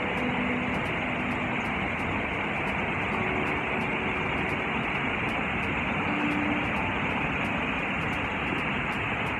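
Ézaro waterfall: a steady, even rushing of falling water that does not let up.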